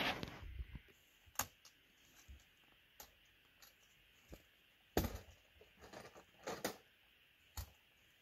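Light knocks and clicks of work on a wooden plank floor, about half a dozen spread over several seconds with quiet between them.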